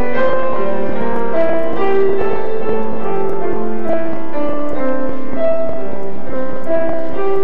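Instrumental keyboard music, a slow run of held, overlapping notes.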